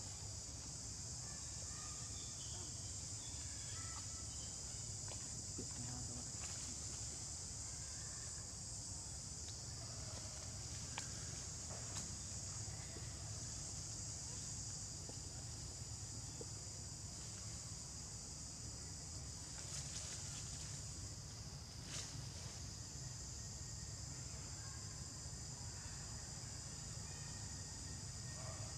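Steady high-pitched insect chorus, with a low rumble underneath and a few faint clicks partway through.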